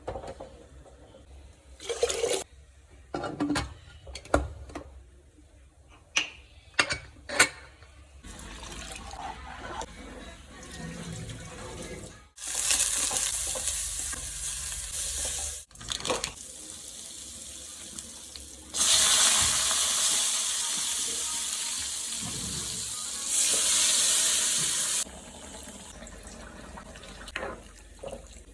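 Water from a tap running into a sink twice: a short run of about three seconds, then a longer, louder run of about six seconds. Before the water there are a few sharp knocks and clatters.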